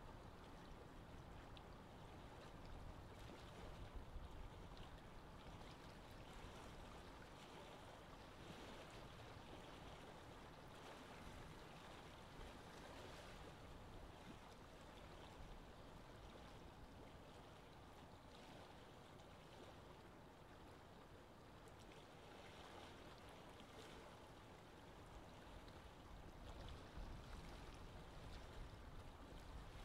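Near silence: a faint, steady wash of choppy water with a low rumble underneath.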